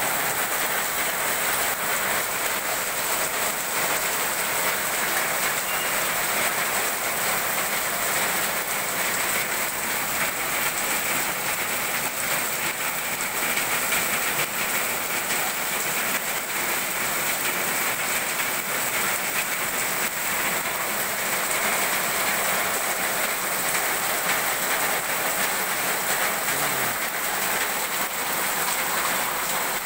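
Heavy rain falling steadily onto pavement and a street, an even, unbroken rush of noise.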